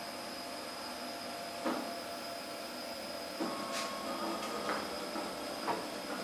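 HMI 575 moving-head stage light powering up: a steady fan whir with a high whine, broken by several sharp mechanical clicks and a brief whine from its moving parts.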